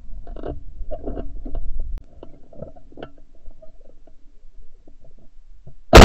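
Faint knocks and a low rumble as a gun-mounted camera swings after pigeons, then a single loud shotgun shot right at the end.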